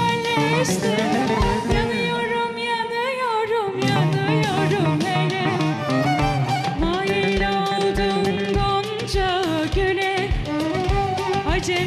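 A woman sings a Turkish folk song (türkü) through a microphone, with held, ornamented notes over a live band and a steady drum beat.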